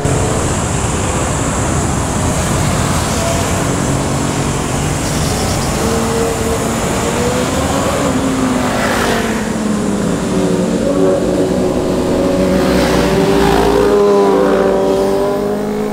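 Sport motorcycles passing one after another through a tight bend, their engines revving, the pitch rising and falling as they roll off and accelerate out. Several engine notes overlap, and the loudest pass comes near the end.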